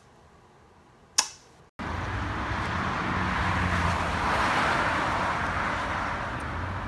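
A single sharp click about a second in, then, after an abrupt cut, steady city street noise: a wide hiss of traffic with a low rumble underneath.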